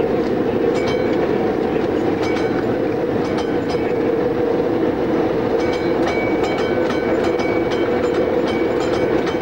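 An interurban tramcar running along the line, heard from the driver's cab: a steady running noise with irregular clicks of the wheels over rail joints. A faint high whine sounds for a couple of seconds past the middle.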